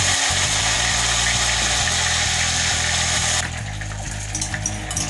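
Hot oil sizzling loudly as a batch of egg-batter chips deep-fries; about three and a half seconds in the hiss drops abruptly to a lighter crackling.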